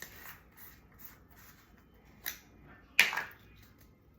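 Kitchen handling sounds: a measuring spoon and spice jar clicking and tapping while celery seed is measured out. Scattered small clicks, with one louder knock about three seconds in.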